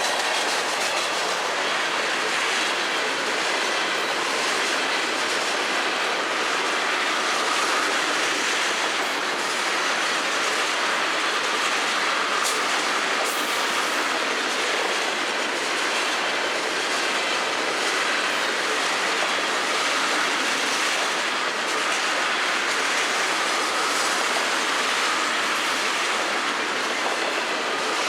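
Freight cars of a long Florida East Coast train rolling past, their steel wheels on the rails making a steady noise that does not let up.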